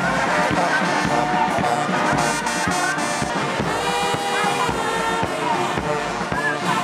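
Brass band music with a steady drum beat.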